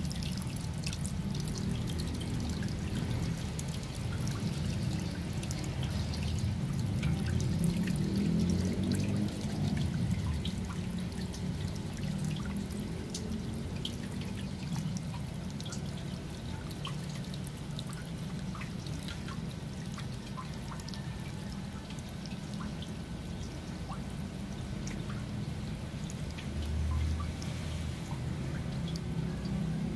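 Water pouring steadily from the open end of a drain pipe and splashing onto wet concrete as a water tank is emptied.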